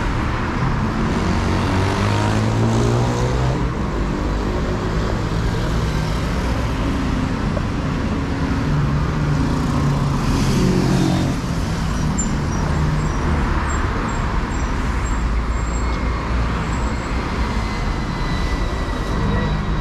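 Street traffic on a busy city avenue: cars, buses and motorcycles going by under a steady low rumble, with one engine speeding up in the first few seconds and another around ten seconds in.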